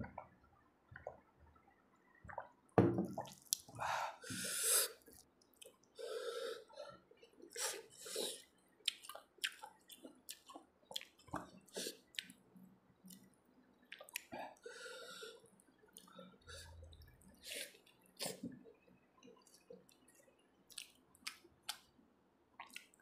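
Close-miked mouth sounds of a person eating fried rice with his hand: wet chewing, lip smacks and small irregular clicks. Louder breaths and gulps come about three to five seconds in, just after a drink of water.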